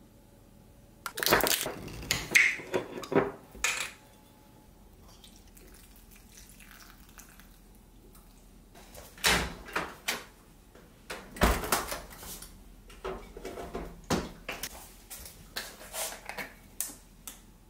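Kitchen handling sounds: a spoon tapping and scraping against a yogurt cup and cut-glass dessert bowls, and bottles being picked up, set down and poured over chopped fruit. They come as scattered clusters of sharp clicks and knocks, with a quieter stretch in the middle.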